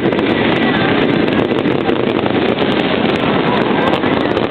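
Fireworks going off in a dense barrage from rooftop fountains and crackling shells, heard as one loud, steady, noisy din rather than separate bangs.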